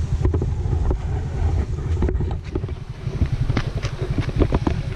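Wind buffeting the microphone in a dense, fluttering low rumble, with scattered light clicks and taps that grow more frequent in the second half.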